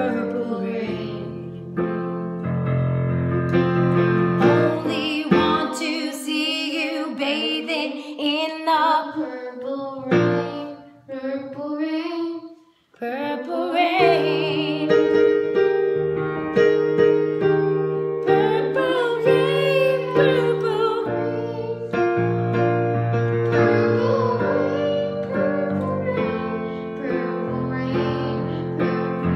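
A boy singing into a handheld microphone, with a woman singing along, over sustained chords on an electric keyboard. About halfway through the keyboard drops out for a few seconds, leaving only the voice, then comes back in.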